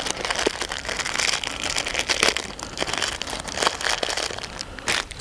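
A packet of Puffi puffed bait crinkling and rustling as it is handled and opened in the hands: an irregular run of small crackles and clicks.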